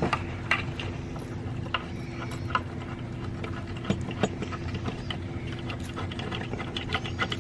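Small metal hardware being handled: light clicks and clinks of screws, lock washers and flat washers being fitted together, scattered irregularly over a steady low hum.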